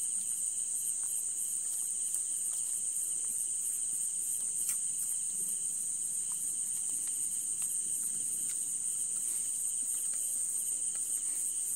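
Night-time chorus of crickets chirping continuously: a steady, high, finely pulsing trill with a fainter, lower band beneath it. A few faint clicks are heard now and then.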